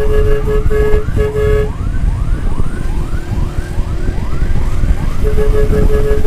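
Siren wailing in short rising sweeps, about two a second, with a pulsed beeping tone at the start and again near the end, over a heavy low rumble of wind and traffic.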